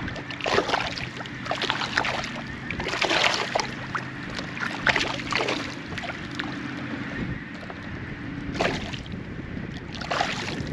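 Fish splashing and swirling at the water surface beside a small boat, in several irregular bursts, as they snatch floating bits of bread. A steady low hum runs underneath.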